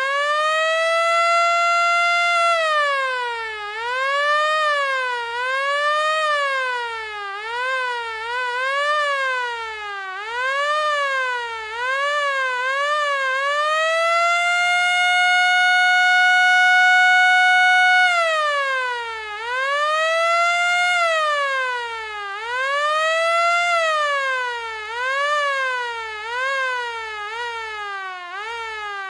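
Fire truck siren. It climbs in pitch and holds a steady note for a couple of seconds, then sweeps quickly up and down over and over. Near the middle it holds one long steady note for about four seconds, then sweeps again and slides down in pitch at the end.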